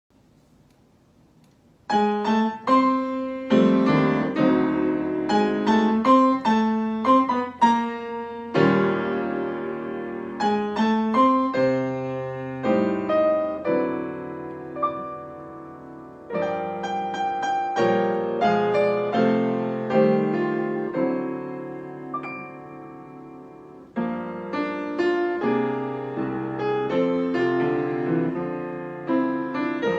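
Solo piano playing a slow piece of chords and melody, starting about two seconds in, with notes ringing on as they fade.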